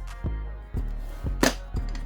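Background music with a steady bass beat, thumping about twice a second, and one sharp click about one and a half seconds in.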